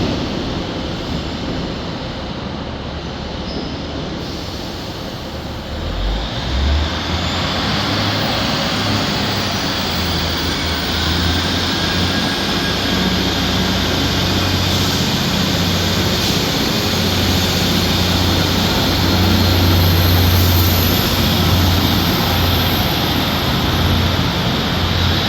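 Train passing along the platform, its noise growing louder about six seconds in and staying loud, with a steady low drone underneath.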